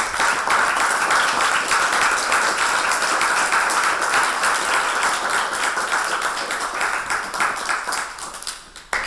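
Audience applauding, a steady spread of many people's claps that dies away near the end.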